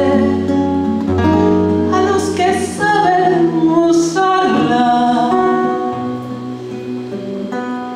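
A woman singing a ballad with live acoustic guitar accompaniment, the guitar plucked beneath her held notes; the performance grows softer near the end.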